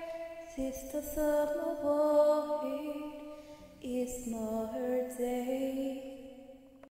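Soundtrack music of slow, long-held notes that change pitch every second or so, fading and then cutting off abruptly near the end.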